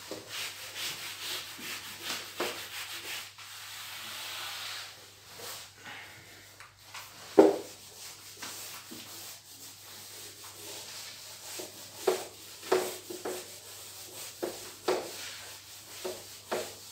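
Whiteboard eraser scrubbed back and forth across a whiteboard in a run of rubbing strokes, with one sharp knock about halfway through.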